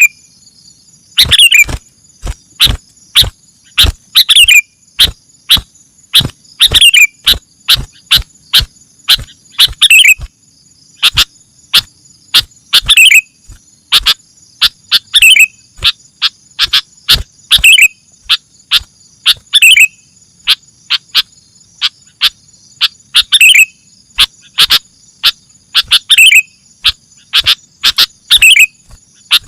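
Bird chirps: repeated sharp, clicky notes in quick clusters, with a falling chirp about every two seconds. A steady high trill like crickets runs underneath.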